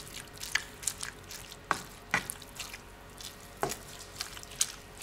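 Black plastic slotted spoon stirring a thick minced chicken and bacon mixture in cream in a nonstick frying pan: soft wet squelches with scattered small clicks and pops, irregularly spaced, over a faint steady hiss.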